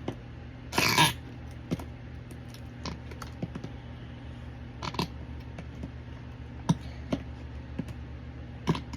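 Noise slime being pressed and poked, with a loud squelch about a second in and then scattered irregular popping clicks: air pushed into the slime forms bubbles that pop.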